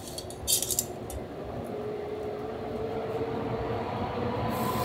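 A short flurry of light metal clinks about half a second in, kitchen utensils or yakitori skewers being handled at the grill. Then a steady background sound with faint held tones grows slowly louder.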